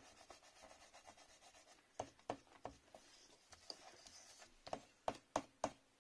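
Eraser rubbing out pencil lines on cardstock in short strokes. The strokes are faint and sparse at first, then come quicker and louder near the end, about three a second.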